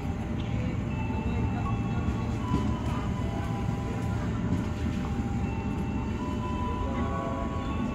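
JR 205 series electric commuter train pulling out and running away down the track: a steady low rumble with faint whining tones that come and go.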